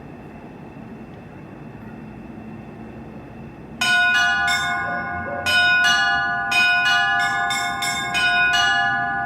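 Orthodox church bells rung by a bell-ringer. After a few seconds of faint steady background noise, a quick run of strikes on several small, high-pitched bells starts about four seconds in, each note ringing on and overlapping the next.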